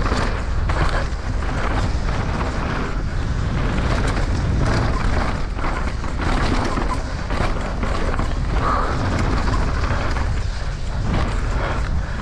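Downhill mountain bike ridden fast over rough dirt: steady wind rumble on the microphone, with frequent knocks and rattles from the bike and tyres over bumps.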